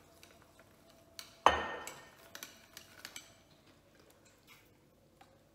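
A glass bottle set down on a hard countertop with one sharp clink about a second and a half in, ringing briefly, followed by a few lighter clinks of metal straws against glass.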